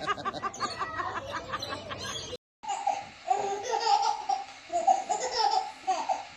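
Laughter in quick repeated bursts. The sound drops out briefly about two and a half seconds in, and laughter of a different pitch follows.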